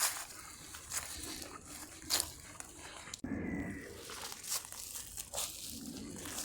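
Footsteps crunching along a disused railway track bed, one step roughly every half second, with a sudden break a little past the middle.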